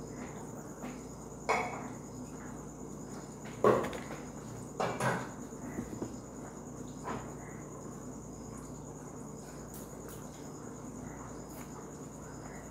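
A steady, high-pitched trill in the background, with a few sharp knocks and rustles of a paper sheet and pencil being handled on a desk, the loudest about three and a half seconds in.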